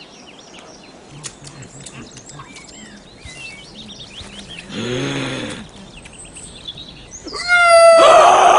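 Forest ambience with faint bird chirps, a low grunt about five seconds in, then a loud, high-pitched yell from a person near the end.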